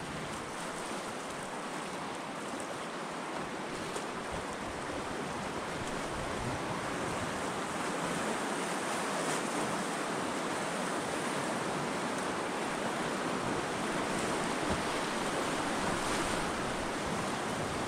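Rushing whitewater of a river rapid around an open canoe: a steady rush of water that grows a little louder past the middle.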